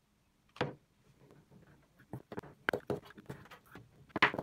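Metal spoon knocking and scraping against an enamel bowl while stirring flour into a sticky batter: one sharp knock about half a second in, then a run of quick clinks and scrapes that is loudest near the end.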